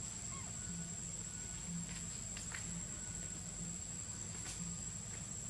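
Steady high-pitched drone of insects such as crickets or cicadas, with a few faint ticks scattered through it.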